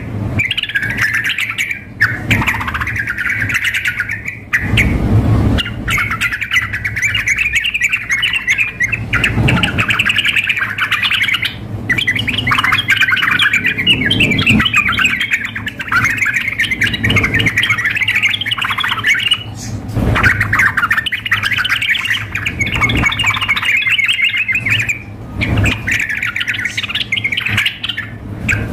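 Yellow-vented bulbuls (trucukan) singing and calling excitedly, a near-continuous run of bubbly, rapidly warbled phrases broken by short pauses. A low hum runs underneath, with a brief low rumble about five seconds in.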